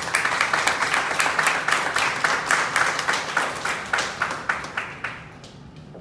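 Audience applauding, a dense round of clapping that thins out and dies away about five seconds in.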